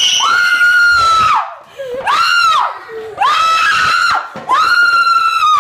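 A person screaming in fright at a snake: four loud, very high-pitched held screams, each about a second long, with a shorter one second.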